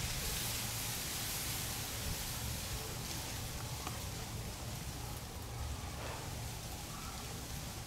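Steady background noise: an even hiss with a low rumble underneath and no distinct sounds standing out.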